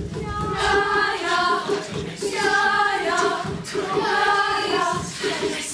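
A stage chorus of many voices singing or chanting together in unison, three short phrases in a row.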